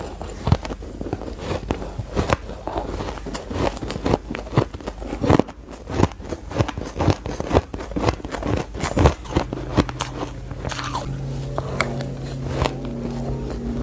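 Close, crisp crunching and biting as mouthfuls of shaved ice are chewed, in many quick irregular cracks. A steady low hum comes in about nine seconds in.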